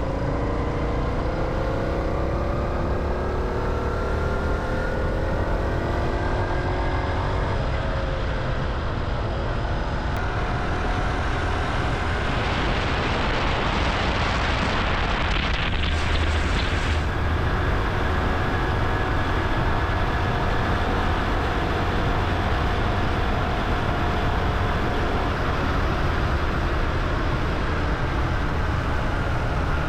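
Small Honda Hunter Cub single-cylinder motorcycle engine running while riding, its pitch rising over the first several seconds as it accelerates, then holding steady. Heavy wind rumble on the microphone throughout, with a louder hiss for a few seconds midway.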